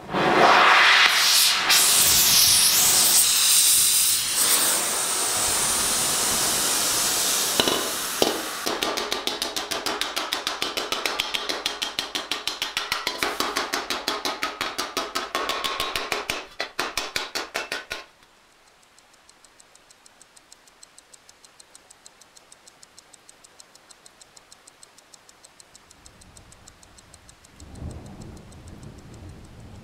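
Steel armor plate being worked: a loud abrasive hiss for about eight seconds, then fast, even hammer strikes on the metal, about five a second. About halfway through the strikes drop much quieter and carry on faintly.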